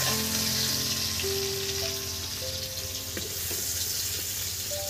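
Hot oil sizzling steadily in an iron wok as fried brinjal slices are lifted out with a ladle. Soft background music with held notes plays underneath.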